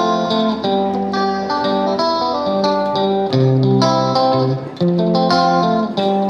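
Background music led by a plucked guitar, its notes and chords changing in a steady rhythm.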